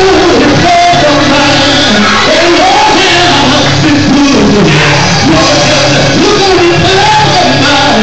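Gospel quartet singing live, a lead voice with the group behind him, over a live band with drums.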